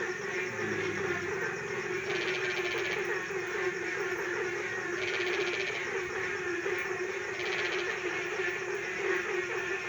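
Chorus of kodok blentung frogs, many overlapping low calls going on steadily, with a higher-pitched trill that comes and goes in spells of about a second.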